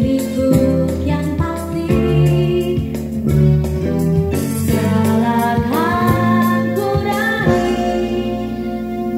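A song with a singing voice over a band accompaniment, played from a cassette on a Technics 676 deck through the amplifier and speakers. The recording picks it up from the speakers in the room.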